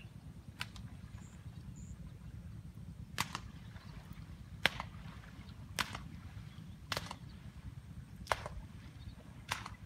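A series of seven sharp, brief knocks or clicks, the first two a few seconds apart and the rest about once a second, over a steady low rumble.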